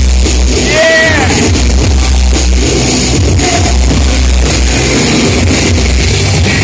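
Loud rock music with guitar, played continuously, with one short note that rises and falls about a second in.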